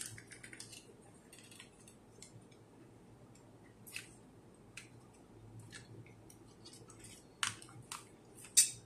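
Small plastic clicks and snaps from the shell of a LINGDU D200 dashcam as it is handled and pressed together by hand, irregular, with the loudest snaps near the end.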